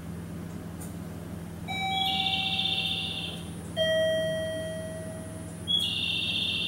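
Station chime sounding a two-note ding-dong: a higher note, then a lower one about two seconds later, each ringing out, together with high warbling electronic chirps that come twice, over a steady low hum.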